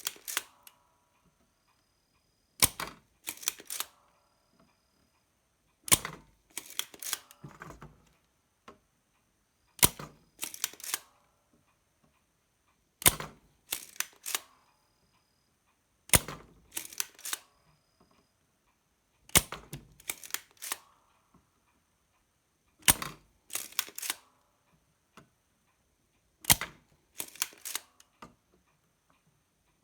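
Spring-loaded desoldering pump (solder sucker) being fired and re-cocked over and over while solder is drawn off a circuit board's joints. Each round is a sharp snap followed by a short run of smaller clicks, repeating about every three seconds.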